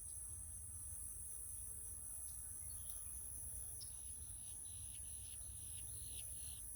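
Steady high-pitched drone of crickets or other insects. About halfway through it is joined by a run of about six short buzzy calls, roughly two a second.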